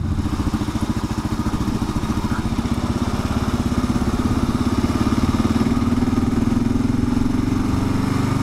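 The single-cylinder engine of a 2022 Kawasaki KLR 650 motorcycle running under way, heard from the rider's seat. Its note climbs slowly as the bike gathers speed after a turn.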